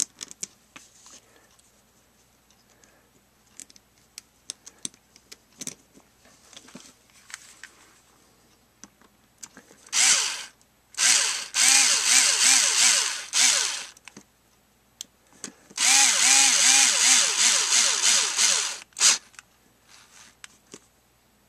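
Ryobi cordless drill/driver driving small screws into a two-stroke carburetor's diaphragm cover, its motor running in several short bursts and one longer run of about three seconds, the pitch wavering. Before that come light clicks of small carburetor parts being handled.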